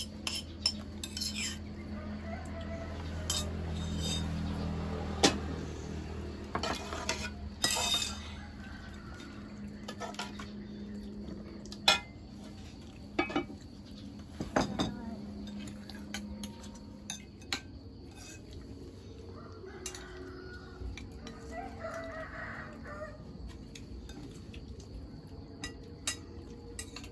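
Scattered clinks and knocks of utensils against pots and dishes, with a low steady hum through the first half. A rooster crows once in the background about three-quarters of the way through.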